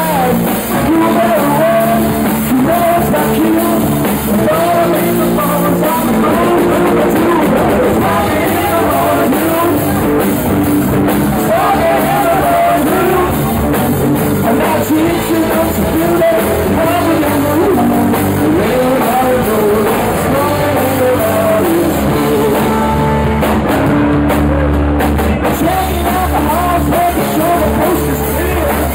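Live rock band playing a rock-and-roll song: electric guitar, bass guitar and drum kit, with a male lead vocal singing into the microphone.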